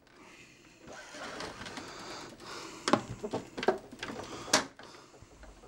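Hands rubbing and shifting the plastic housing of a small evaporative air cooler, followed by a few sharp plastic knocks and clicks as the unit is turned, the loudest about four and a half seconds in.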